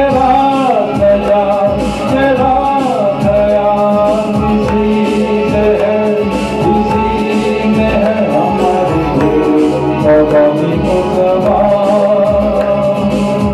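A song: a man singing into a microphone over a guitar backing track with a steady beat.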